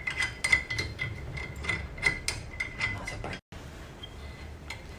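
Rapid small metallic clicks and knocks with a light ring as an LED therapy pad is handled and fitted onto its mounting arms, cut off suddenly about three and a half seconds in.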